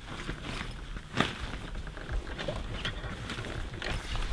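Tent fabric and bedding rustling, with scattered light knocks as gear is handled inside a tent; one sharper knock about a second in.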